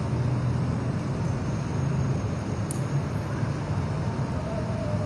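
Steady background noise: a low hum under an even hiss, with no distinct event.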